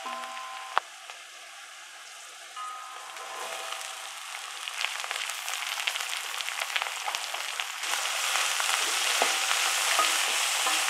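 Vegetables (cabbage, capsicum, carrot) stir-frying in a steel kadai on high flame, with a steady sizzle. A metal spatula clinks against the pan a few times early on, with one sharp clink about a second in. The sizzle builds and jumps louder about three-quarters of the way through.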